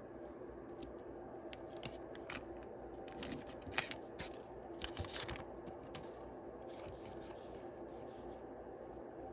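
Trading-card packaging being handled and opened: faint rustling throughout, with a run of sharp crinkles and clicks about three to six seconds in.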